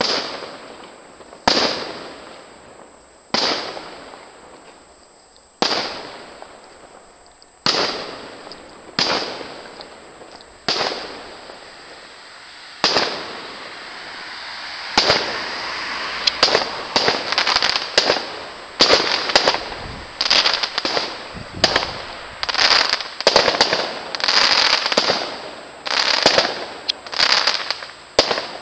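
Aerial firework shells bursting: single sharp bangs one to two seconds apart, each trailing off in an echo, then from about halfway a rapid, dense run of bangs with crackling between them.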